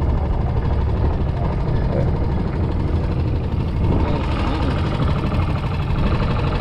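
Steady low rumble of wind buffeting the camera's microphone on an open boat, with faint voices in the background.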